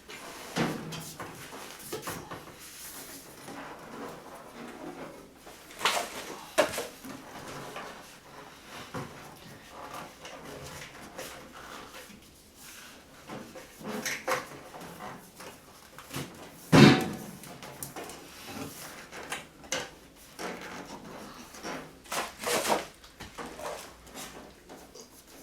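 A countertop microwave being shifted and a non-slip drawer liner laid under it on the counter: rustling and scraping with scattered knocks, and one loud thump about seventeen seconds in.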